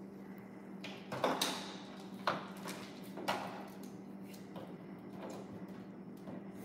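Plastic play-dough tools and toy pieces knocking and clattering on a table. There are a few sharp knocks and short scrapes between about one and three and a half seconds in, over a steady low hum.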